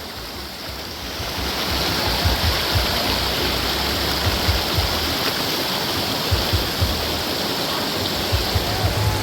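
Water of a stream rushing over rocks, a steady hiss that swells about a second and a half in and then holds.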